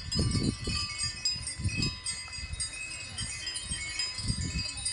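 Several small metal bells jingling, their ringing tones overlapping and sustained, with three dull low thumps: at the start, about two seconds in and near the end.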